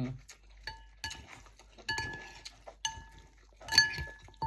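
Eating utensils clinking against a bowl, about six separate strikes that each ring briefly.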